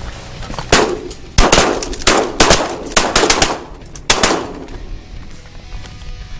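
A volley of shotgun fire from several hunters shooting at incoming geese: about ten sharp blasts in quick, uneven succession over about three and a half seconds, some nearly overlapping, then it stops.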